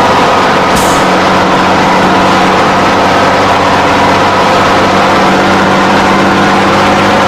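RC toy construction vehicle running with a steady engine-like hum, unchanging in pitch, with a brief hiss about a second in.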